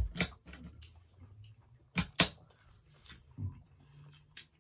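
Close-up mouth sounds of eating a wet burrito: wet chewing and lip smacks, with two sharp smacks about two seconds in.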